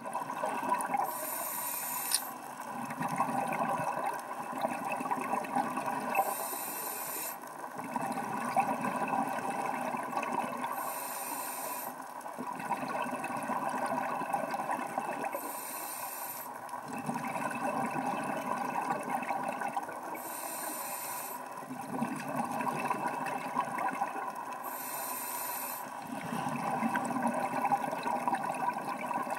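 Scuba diver breathing through a regulator underwater: each breath is a short hiss as the regulator delivers air, followed by a longer rush of exhaled bubbles. The cycle repeats steadily about every five seconds, six breaths in all.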